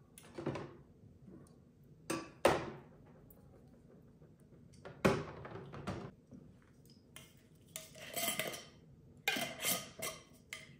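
Small containers and jars knocking and clattering against clear plastic storage bins as they are set in and moved around. Irregular separate knocks, a handful of them, with a longer rattling stretch about eight seconds in.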